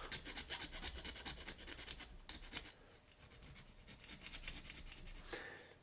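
Needle file scraping across the bare diecast metal body of a toy car in quick, repeated short strokes, faint, with a brief lull about halfway; it is smoothing away casting lines.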